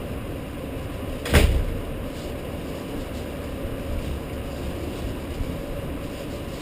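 Steady rain-storm noise, with one sharp crack about a second and a half in that dies away quickly.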